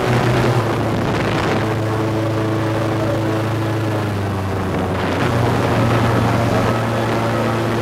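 Airboat engine and air propeller running at speed over open water, a loud steady drone.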